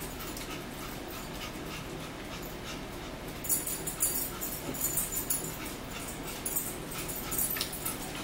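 Someone sipping a drink through a plastic straw from a plastic cup, in short quiet bouts from about three and a half seconds in.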